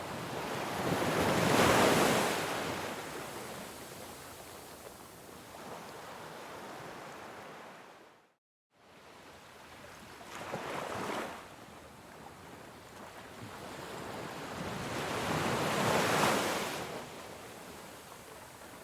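Ocean waves breaking and washing up a shore, swelling and fading in slow surges: one loud about two seconds in, a smaller one past the middle, and another near the end. The sound cuts out completely for about half a second near the middle.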